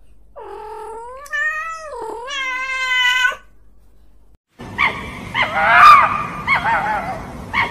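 A cat's long, drawn-out meow in two rising parts with a dip between them. After a short gap a different recording starts: several dogs whining and yipping in short overlapping calls over a steady background hiss.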